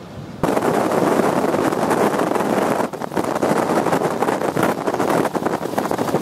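Strong wind buffeting the microphone, a loud rushing, fluttering noise that cuts in suddenly about half a second in.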